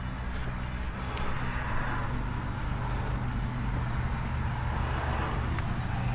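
Steady low engine hum, with a few faint clicks.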